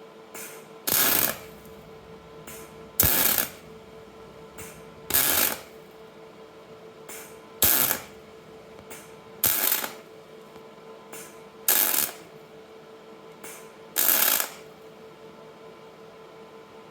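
Short bursts of arc welding, seven of them, each about half a second long and coming roughly every two seconds, as a worn part is built up with weld for re-machining.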